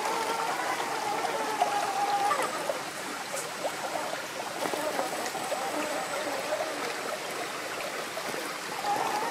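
Stream water running steadily over rock. The electric drive of a 1/8-scale Traction Hobby Cragsman Pro trail crawler whines faintly and wavers in pitch for the first two seconds or so, and again near the end, as it crawls over wet stone.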